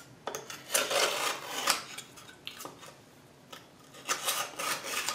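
Scalpel blade trimming the overhanging sandpaper along the edge of a thin wooden sanding stick: short scraping cuts in two spells, with a pause between them.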